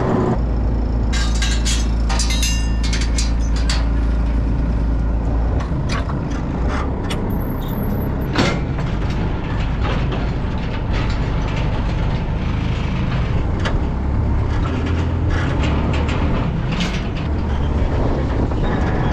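Tractor engine running steadily as it drives, with a low rumble and frequent knocks and rattles from the loader and its load. One sharper knock comes about eight and a half seconds in.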